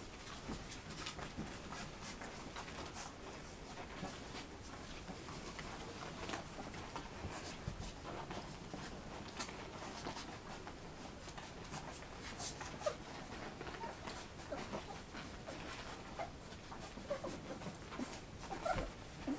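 Three-week-old Golden Retriever puppies suckling from their mother: faint smacking and shuffling made of many small clicks, with a few short puppy squeaks in the second half.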